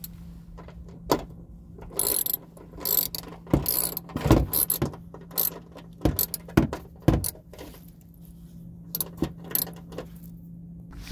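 Ratchet wrench with a 10 mm socket clicking and clinking in short, irregular spells as it backs out the 10 mm bolts of a plastic wheel-well splash shield.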